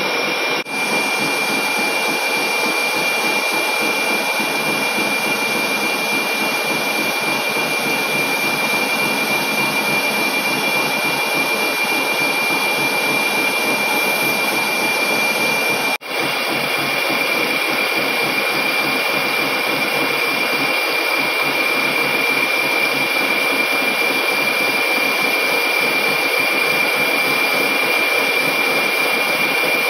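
Heavy lathe turning a large forged metal wheel blank, the cutting tool peeling off chips with a steady grinding noise and a high whine. The sound drops out for an instant about a second in and again about halfway through.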